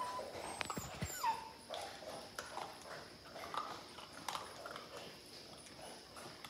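Labrador retriever puppies whimpering and squeaking at feeding time: short high calls, some falling in pitch, over scattered clicks and knocks.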